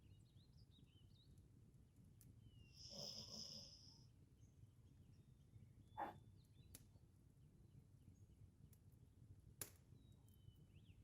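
Faint sounds of a sleeping Labrador retriever: one short breathy exhale about three seconds in, over a low steady room hum. Two sharp clicks come later, and faint high chirps are scattered throughout.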